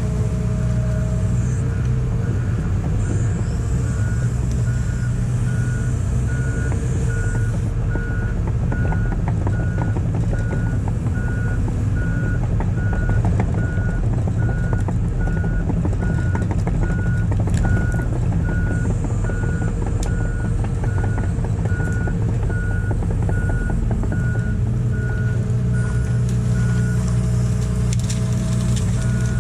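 Large excavator's diesel engine running steadily while its warning alarm beeps at an even rhythm, one repeated tone. A faint high whine comes and goes over the engine.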